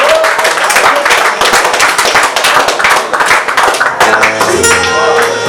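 Concert audience clapping along together in a steady rhythm; about four seconds in, a band's bass and keyboard tones come in under the claps.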